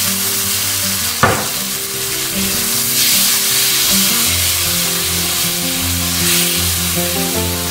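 Tomato-and-spice masala sizzling in a frying pan, a steady hiss, with one short knock about a second in. Background music with sustained notes plays underneath.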